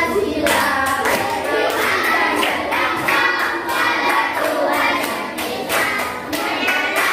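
A class of young children singing a song together while clapping a steady beat, a little over two claps a second.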